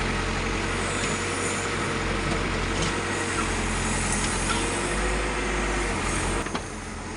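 Heavy diesel engines running hard as a backhoe loader works to free a stuck, sand-loaded tipper truck: a steady low rumble with a whine that wavers slightly in pitch. The engine sound drops off about six and a half seconds in.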